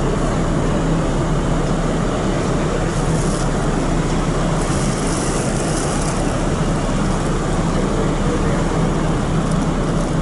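Steady drone of the ferry Ogasawara Maru under way at sea, a low engine hum under the rush of wind and water on the open deck. A higher hiss swells about three seconds in and again from about four and a half to six seconds.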